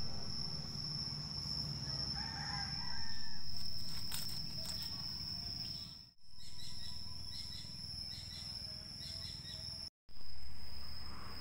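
Rural outdoor ambience: a steady high-pitched insect drone with scattered bird calls, broken by two brief dropouts.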